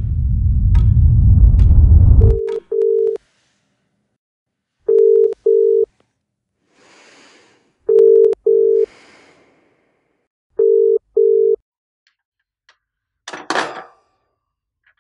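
A deep rumbling swell builds and cuts off abruptly. Then a telephone ringing tone is heard through the handset, four double beeps at one steady pitch about three seconds apart: the call is ringing unanswered. A brief clatter comes near the end.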